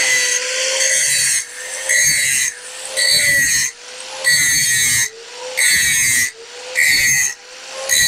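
WEN 4-1/2" angle grinder running free with nothing to grind. It runs steadily for about a second and a half, then is switched on and off in short bursts about once a second, its high whine dying down between bursts.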